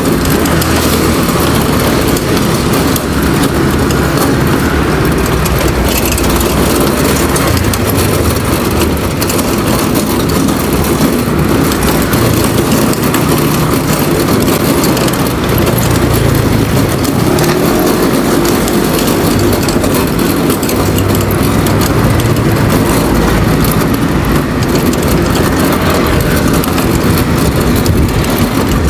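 Steady road and traffic noise while riding along a city street among cars and motor scooters, with a continuous rush of wind over the microphone.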